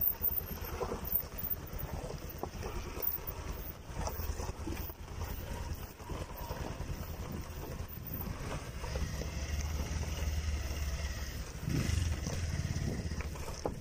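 Motorcycle engines running at low speed on a rough dirt trail: a steady low rumble with scattered knocks and rattles, growing stronger in the second half.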